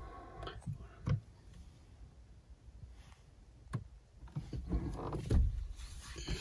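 Faint handling noises in a car cabin as a dashcam's adhesive mount is held and pressed against the windscreen: a couple of small clicks, then low rubbing and bumps over the last two seconds.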